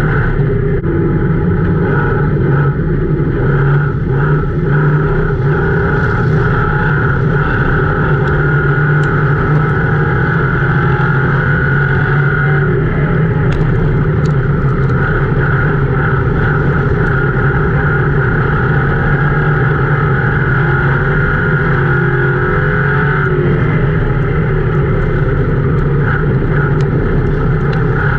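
Ford Crown Victoria race car's V8 running hard under racing load, heard from inside the stripped cabin, its note falling and rising with the throttle through the turns.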